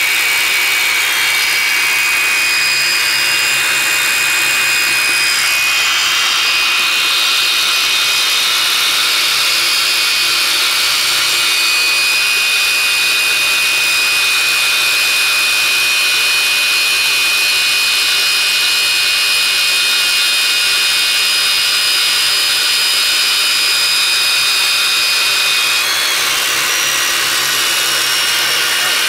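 Electric drill running steadily with a high whine as its long bit bores into concrete; the whine shifts slightly about six seconds in and again near the end.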